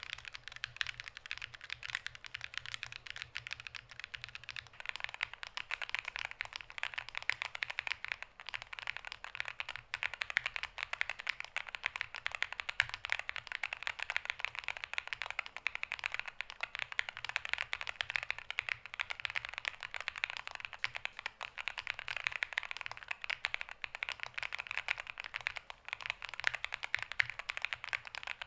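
Continuous fast typing on a NuPhy GEM80 mechanical keyboard with Lemon linear switches: a dense run of keystroke clacks that grows fuller about five seconds in.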